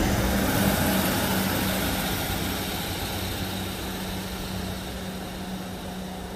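Rushing rumble of a passing train fading away, under the steady low drone of an approaching diesel multiple unit's engine.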